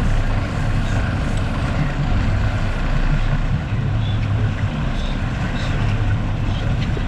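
A sportfishing boat's engine running steadily with a low drone, under a constant hiss of wind and water.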